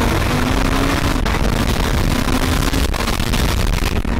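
Twin-turbo Dodge Viper engine pulling at highway speed, heard from inside the cabin under heavy wind and road noise. Its note climbs, then drops a step with a brief knock about a second in and runs on steady.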